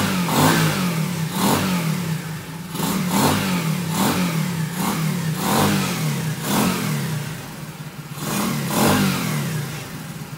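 Lifan 125cc single-cylinder four-stroke engine in a Honda Dax ST70 minibike running, its revs repeatedly rising and falling about once a second as the throttle is worked.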